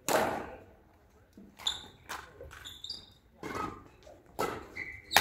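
Badminton rackets striking a shuttlecock during a doubles rally: several sharp hits a second or so apart, each echoing in a large sports hall.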